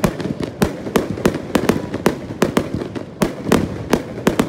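Aerial fireworks bursting overhead: a rapid, irregular string of sharp bangs and crackling pops, several a second.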